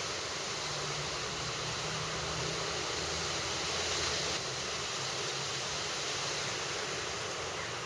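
Steady, even rushing hiss of outdoor background noise, with no distinct events.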